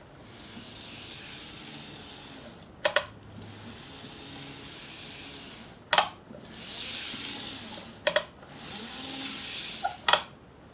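N-gauge model diesel locomotive with a flywheel motor running on track: a steady whirring hiss that swells and fades, cut by four sharp clicks spaced two to three seconds apart.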